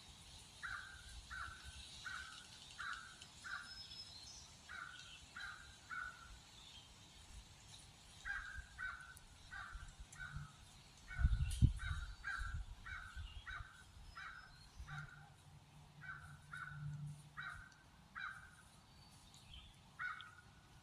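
A bird calling in long runs of short, evenly spaced calls, about two a second, with fainter high chirps of other birds behind it. A low thump about halfway through is the loudest sound.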